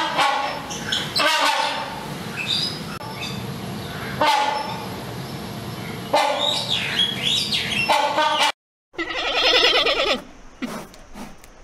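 Hornbill calling: about five loud honking calls in a row, one every one to two seconds. After a short break, a giant panda's drawn-out bleat, followed by a few faint clicks.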